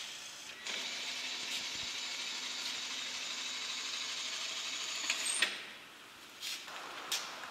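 Electric lift motor of a Tiller liftmobile bag lifter running steadily as its carriage lowers a bag, stopping with a click about five and a half seconds in. A shorter burst of mechanical noise with clicks follows near the end.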